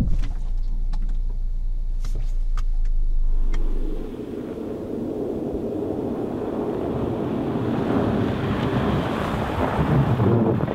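Honda Accord on a snow-covered road: first a steady low road rumble inside the cabin with a few faint clicks. About four seconds in, it changes to the car heard from outside, its tyre and road noise on the snow growing as it approaches. Near the end the car slows with its electric parking brake applied.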